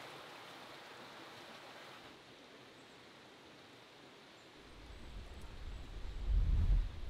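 Faint steady outdoor hiss, then a low rumble that builds from about five seconds in and is loudest near the end.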